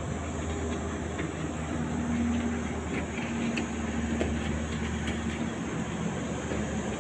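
Steady engine drone with a low rumble and a humming pitch that holds for several seconds, mixed with wind noise.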